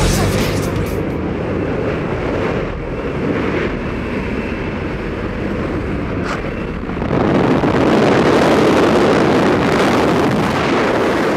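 Steady rush of wind and engine noise inside a small skydiving plane's cabin with the jump door open, getting louder about seven seconds in.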